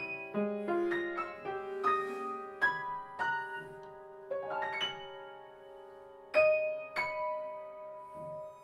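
Background music: free-jazz piano playing sparse, ringing notes and chords over a long held note.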